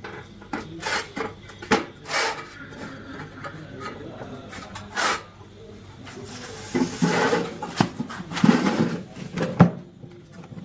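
Handling noises: scattered light knocks and clicks, with a longer stretch of scraping and rubbing about seven seconds in.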